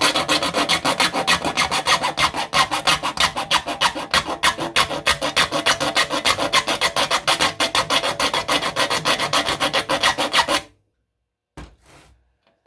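A file rasping rapidly back and forth across the teeth of a dull hand saw, sharpening them with several quick strokes a second. The filing stops suddenly near the end, followed by a couple of faint clicks.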